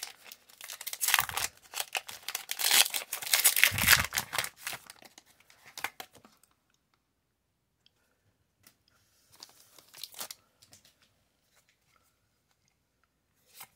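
A foil Pokémon booster pack wrapper is torn open and crinkled by hand. The dense crackling runs for about the first four seconds and fades out by about six. A short, softer crinkle follows around nine to ten seconds in.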